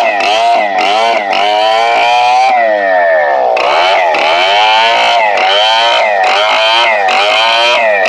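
STIHL 070 two-stroke chainsaw running under load while ripping mahogany, its engine pitch dipping and recovering about twice a second as the chain bites, with one longer, deeper dip about halfway through.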